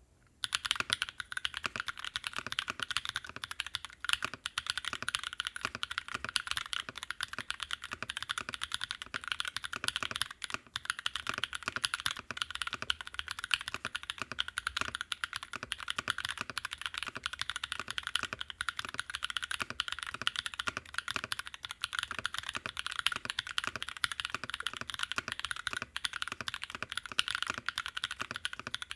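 Continuous fast typing on an aeboards Constellation mechanical keyboard fitted with Naevy v2 long-pole tactile switches, its plate o-ring mounted on soft 30A Graveshift o-rings: a steady, rapid stream of keystroke clacks that starts about half a second in.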